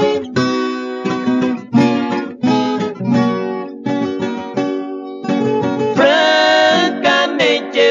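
Instrumental break in a sertanejo raiz song: plucked acoustic string instruments playing a melody of quick picked notes, with a held, wavering note about six seconds in.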